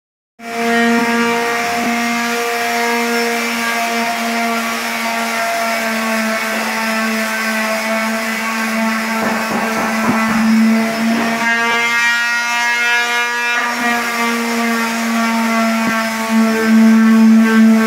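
Corded electric hand sander running against drywall joint compound: a steady motor whine that holds one pitch. There are scraping rasps from the pad on the wall about nine to eleven seconds in.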